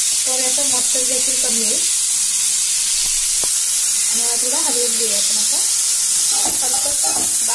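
Grated bottle gourd frying in ghee in a kadhai, a steady high sizzle while it is stirred with a wooden spatula. A voice comes and goes faintly in the background.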